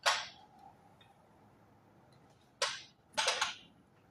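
Three short, sharp clatters of tools or car parts being handled: one right at the start, then two close together about three seconds in.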